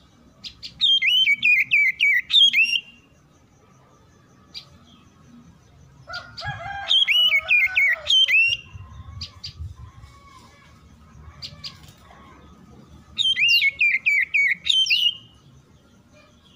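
Oriental magpie-robin (kacer) singing three bursts of quick whistled notes, each about two seconds long and a few seconds apart.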